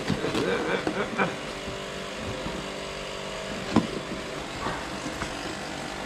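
Knife slicing through the packing tape on a cardboard box, then the cardboard flaps being pulled open and rustling, with one sharp click a little past halfway. A steady traffic hum runs underneath.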